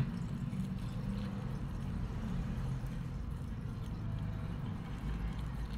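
A steady low hum, with no distinct clicks or knocks.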